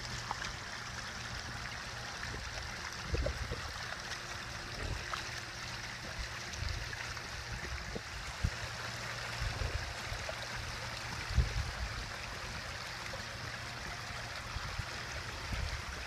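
Water trickling and splashing over the rocks of a pondless waterfall just switched on, a steady small-stream sound. A few soft low thumps come and go through it.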